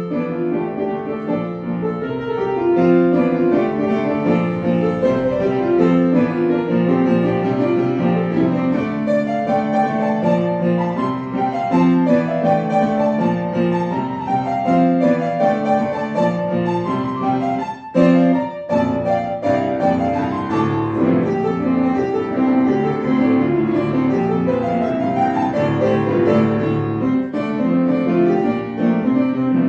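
Piano music playing, note after note, with a brief break about eighteen seconds in.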